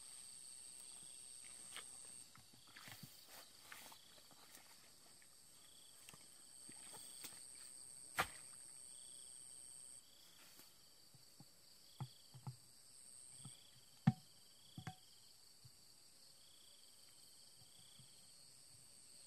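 Insects trilling in the grass, a steady high thin drone that drops out and comes back, with repeated short chirps and a few scattered sharp clicks and soft knocks.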